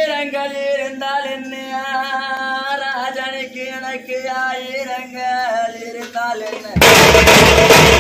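A man sings an oppari funeral lament for his father in long, drawn-out, sliding notes. About seven seconds in, loud drumming breaks in over it.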